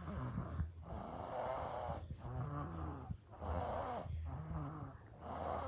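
A baby snoring, with rough, noisy breaths following one another about once a second.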